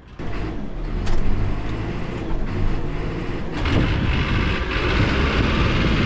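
Diesel engine of a Cat 420F backhoe loader running hard as the machine drives across a dirt yard on a wheelie run, a steady engine drone that grows a little louder about three and a half seconds in.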